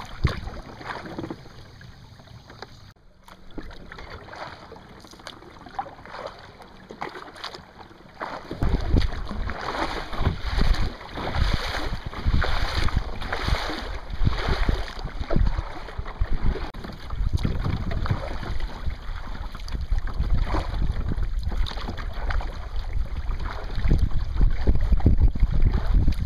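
Paddling a kayak on choppy lake water: paddle strokes splashing about once a second and water slapping the hull, with wind buffeting the microphone that comes in loud about nine seconds in.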